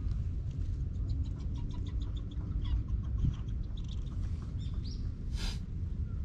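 A domestic cat giving one short meow about five seconds in, over a steady low rumble and faint short chirps and ticks.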